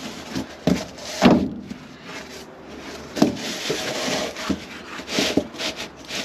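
A board being handled and positioned by hand: a series of irregular light knocks and taps, with a stretch of scraping in the middle.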